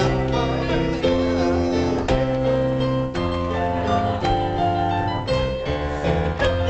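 Instrumental music: held chords and notes that change about once a second, each change starting with a sharp attack.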